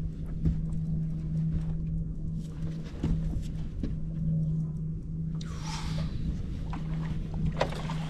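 Bass boat's electric trolling motor humming steadily with wind rumble, and a splash a little after halfway through as a hooked freshwater drum thrashes at the surface beside the boat.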